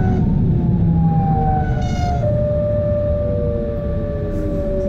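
Class 425 electric multiple unit's traction motors and inverters whining in several tones that slide downward, with one steady tone settling in about two seconds in, over the rumble of the wheels on the rails, heard from inside the coach. The falling whine is the electric brake slowing the train into a station.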